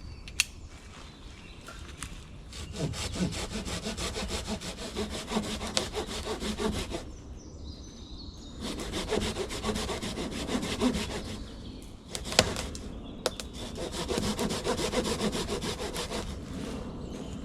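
Hand saw cutting through a dead oak branch, stroke after stroke, in three bouts with short pauses between them. A single sharp knock sounds in the pause about twelve seconds in.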